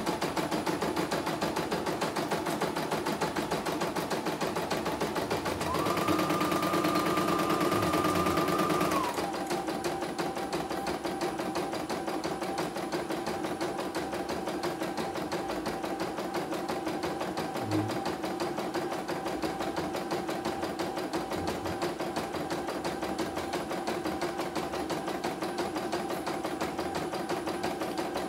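CNY single-needle computerized embroidery machine stitching a design, its needle bar clattering in a fast, even rhythm over a motor whine. About six seconds in, the whine rises in pitch and gets louder for about three seconds, then drops back to a steadier, lower run.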